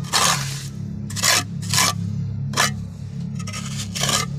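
A trowel scraping and smoothing wet cement mortar around the base of a toilet bowl, in about five short strokes, over a steady low hum.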